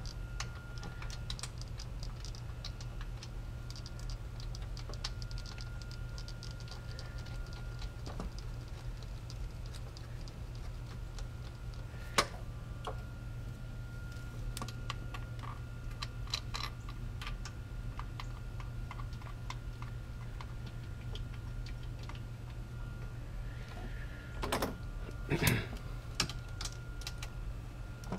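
Rapid clicking of a ratchet wrench as a starter-motor mounting bolt is run in on a Honda Civic, in runs of fine ticks with a few louder metal knocks about twelve seconds in and again near the end.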